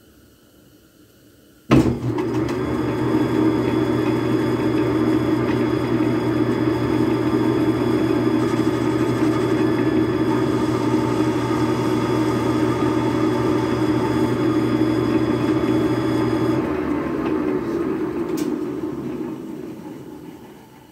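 Small benchtop metal lathe switched on about two seconds in, motor and spindle running steadily with a hum and a whine. Switched off a few seconds before the end, it spins down and fades out.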